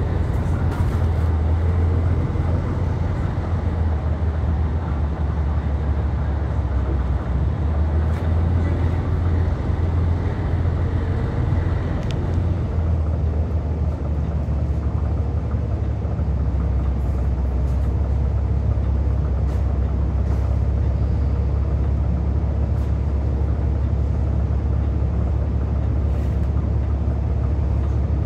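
Steady low drone of a city bus's drivetrain and road noise, heard from inside while riding. A faint high whine stops about twelve seconds in, and the low hum drops slightly in pitch a few seconds later, with a few light rattles.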